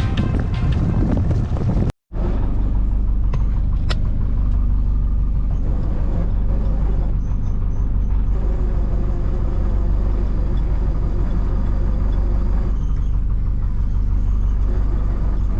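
Background music that cuts off abruptly about two seconds in, followed by a sailboat's engine running steadily with a low rumble.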